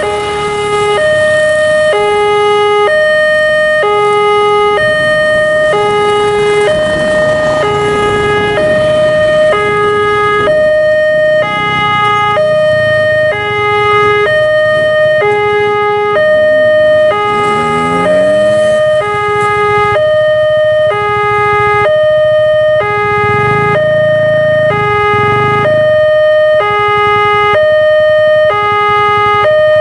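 Electronic railway level-crossing alarm sounding its warning: a loud two-tone chime alternating steadily between a high and a low note, about one high-low pair a second, while the crossing lights flash and the barrier comes down for an approaching train.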